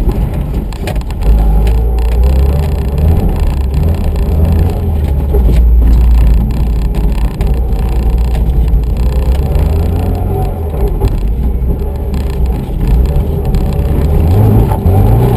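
Subaru Impreza RS's flat-four boxer engine running hard under load, heard from inside the cabin, the revs rising and falling as the car is driven on snow. The engine note climbs near the end.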